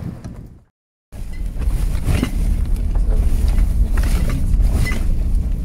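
Engine of a 4x4 running steadily while driving over a rough dirt track, with scattered knocks and rattles from the vehicle over the bumps. Near the start the sound fades out and drops to silence for about half a second at a cut, then comes back.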